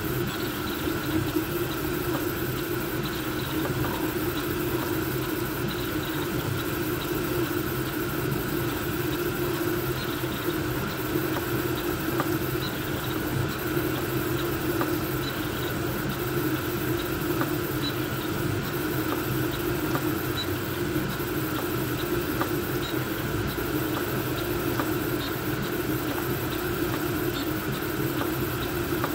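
Voron V2.4 3D printer running a fast print: a steady whir of its cooling fans mixed with the hum of stepper motors as the toolhead moves, with faint light ticks.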